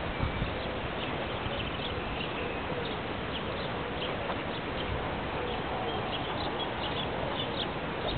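Many short, high bird chirps over a steady hiss of outdoor noise, with wind buffeting the microphone.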